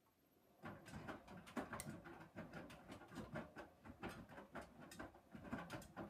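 Hoover Dynamic washing machine's drum starting to turn less than a second in, with wet laundry tumbling and water sloshing, and irregular clicks and knocks.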